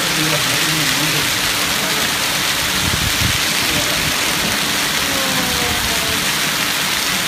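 A hailstorm with heavy rain pelting the pavement in gusting wind, a steady dense hiss that does not let up.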